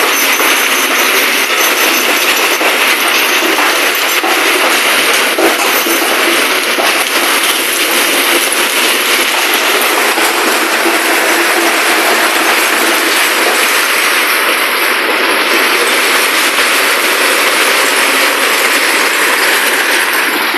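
Crushed stone pouring out of a tipping dump truck bed: a steady, dense rush and rattle of rocks sliding over steel and onto the pile below.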